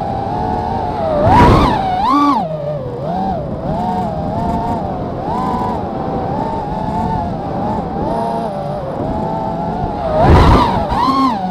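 FPV racing quadcopter's motors and propellers whining, heard from the drone's own onboard camera, the pitch rising and falling constantly with the throttle. Two loud rushing surges, about a second and a half in and near the end, come as the pitch jumps on hard throttle punches.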